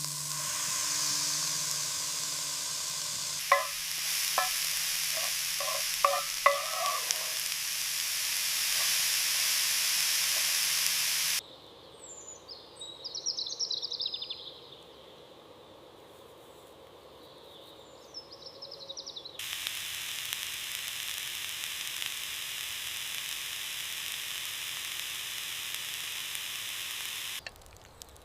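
Steak and vegetables sizzling in a pan over a campfire, with several sharp clinks of a utensil in the pan a few seconds in. Partway through, the sizzling drops away for several seconds and a bird chirps, then steady sizzling resumes.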